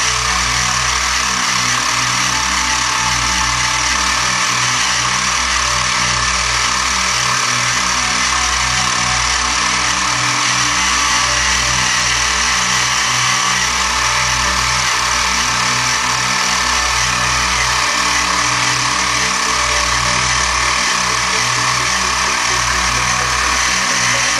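Sieg X2 CNC mini mill cutting metal: the spindle motor and end mill run steadily in the cut while coolant sprays on the work, a loud constant hiss over a regular low pulsing.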